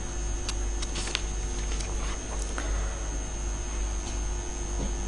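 Steady low mains hum and room tone, with a few faint clicks as sheets of paper are handled.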